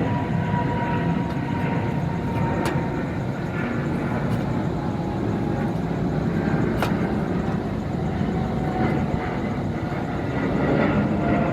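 Steady, fairly loud mechanical rumble, with a faint steady whine and a few sharp clicks or taps through it.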